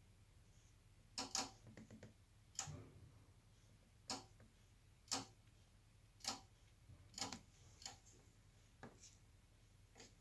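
A dozen or so sharp clicks at uneven intervals, roughly one a second, some in quick pairs, over a faint low hum.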